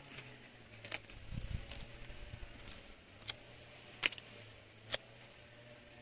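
Paper sticker peeled from its backing by hand and pressed onto an album page: several sharp little paper clicks and crackles, the loudest about four seconds in, with a low handling rumble around a second and a half in.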